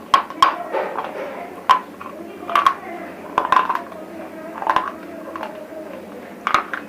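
Close-up crunching of brittle chip-sized pieces of broken bar, bitten and chewed, giving sharp cracks at irregular intervals about once a second.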